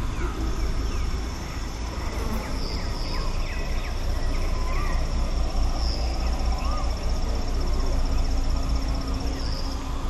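Rural birdsong-and-insect ambience: an insect keeps up a steady high trill that breaks off briefly a few times, with scattered short bird chirps and whistles. Under it runs a low rumble of breeze on the microphone, the loudest part throughout.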